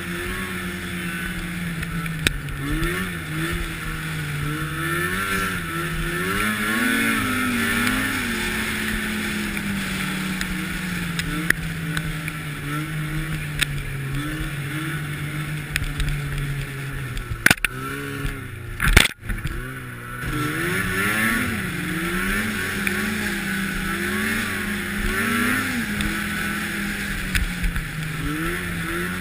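Arctic Cat snowmobile engine running under way, its pitch rising and falling again and again with the throttle, over a steady hiss. A few sharp knocks come a little past halfway.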